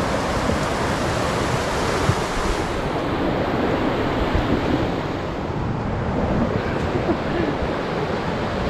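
Muddy river in flood rushing past the bank, a loud, steady wash of water noise, with wind buffeting the microphone.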